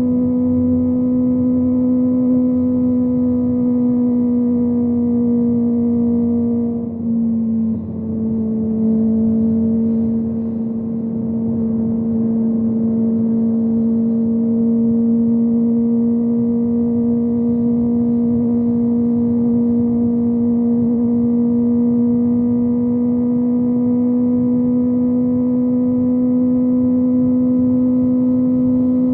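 Kawasaki ZX-25R's 250 cc inline-four engine with a Yoshimura exhaust, cruising at steady high revs under way. About seven seconds in the note dips briefly, then carries on a little lower and slowly rises again.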